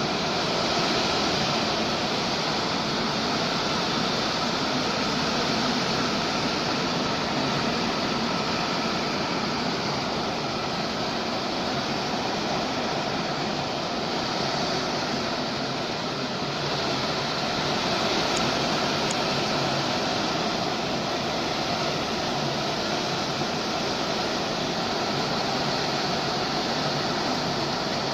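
Heavy tropical-storm rain and wind making a steady, loud rushing noise.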